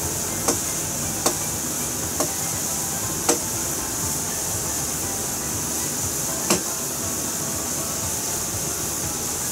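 Fish-bone broth boiling hard in an aluminium saucepan over a high gas flame: a steady hiss broken by five sharp pops in the first seven seconds.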